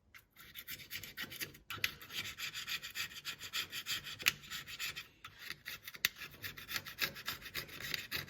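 A scraper scrapes old gasket and silicone off the metal mating face of a differential housing in quick, repeated strokes, with a couple of brief pauses.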